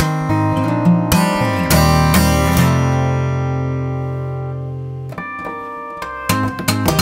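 Solo acoustic guitar played fingerstyle. A few sharp struck chords come first, then one chord is left ringing and slowly fading for about two and a half seconds. Quicker picked notes start again near the end.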